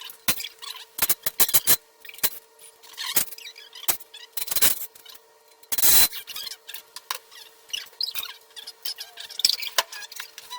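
Irregular sharp clicks and knocks with scraping and a few short high squeaks, over a steady faint hum. The loudest knock comes about six seconds in.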